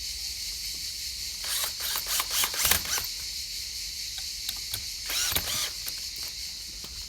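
Two short spells of clattering and knocking, as pieces of timber are handled: one about a second and a half in, the other a little after five seconds. A steady high-pitched hiss runs underneath.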